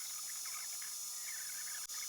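3D printer stepper motors chirping and whirring in quick, irregular squeaky bursts over a steady high whine, sped up. The sound drops out for an instant near the end.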